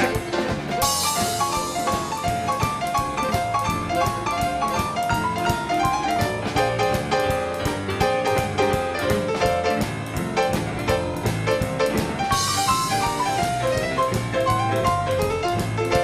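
Live western swing band playing an instrumental break: fast runs of single notes over bass and drums, with no singing. A cymbal crash comes about a second in and another about three-quarters of the way through.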